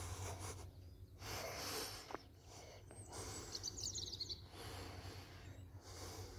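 Outdoor background noise that swells and fades, with a bird giving one short, quick chirping trill about halfway through.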